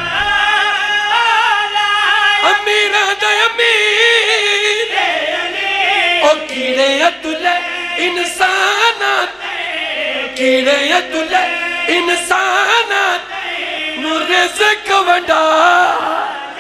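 Men singing a devotional qasida through microphones, in long wavering melismatic lines.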